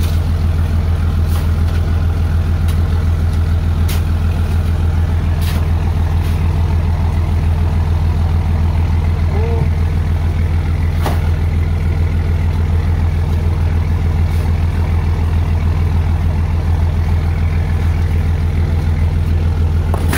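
Fishing boat's engine running steadily with a deep, even hum, with a few short sharp knocks and clicks over it.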